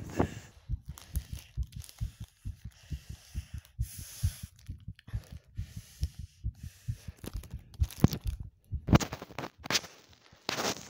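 Heartbeat: a quick, even run of low thumps, several a second, with brief bursts of rustling noise about four seconds in and several more from about eight seconds on.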